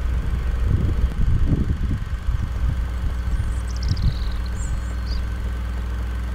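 Steady low rumble, louder and uneven in the first two seconds, with a small bird's short descending trill and a second brief call midway.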